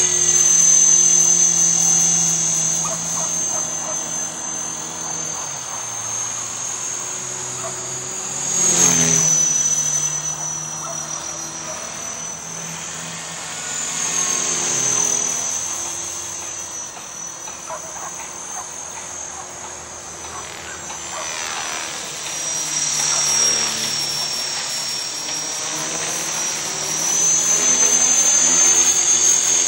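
A 450-class electric RC helicopter flying, with a high motor and rotor whine that wavers up and down in pitch. It grows louder and softer as the helicopter moves, and is loudest about nine seconds in and again near the end.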